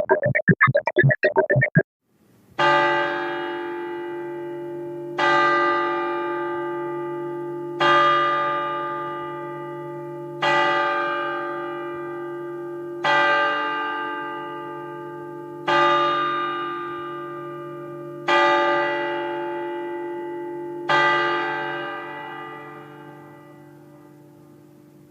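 A short choppy sound effect that cuts off about two seconds in, followed by a bell tolling seven times at an even, slow pace, about one stroke every two and a half seconds. Each stroke rings on and decays, and the last fades away.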